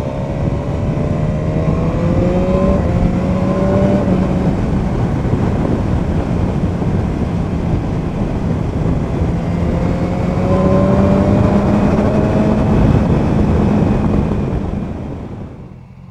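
2017 BMW S1000R's inline-four engine through its stock Akrapovic slip-on exhaust, ridden at road speed under heavy wind rush on the microphone. The engine note rises twice as the bike accelerates, then the sound falls away as the bike slows to a stop near the end.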